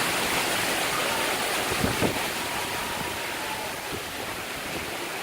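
Hurricane wind and rain rushing steadily, with a couple of short thumps about two seconds in.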